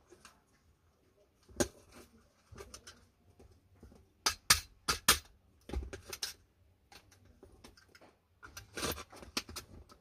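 Sharp plastic-and-metal clicks and knocks from a Hyundai Starex sliding-door handle assembly being handled and pressed together, about a dozen irregular snaps with the loudest around the middle.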